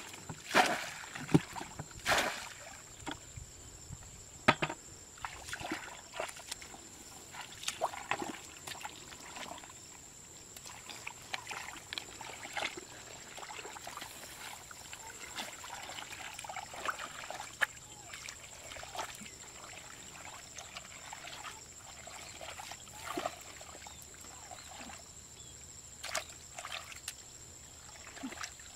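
Muddy water splashing as it is scooped and thrown out of a shallow ditch with a bowl, loudest in the first few seconds, then irregular smaller splashes and sloshing as hands work through the mud and shallow water.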